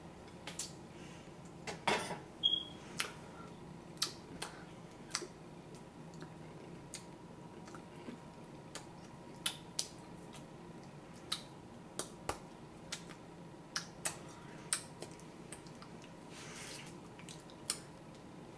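Scattered sharp clicks, about one or two a second at irregular intervals, over a faint steady hum.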